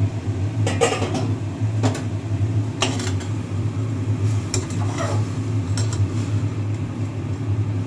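A spatula stirring flattened rice (poha) in a kadai, knocking and scraping against the pan about half a dozen times, over a steady low hum.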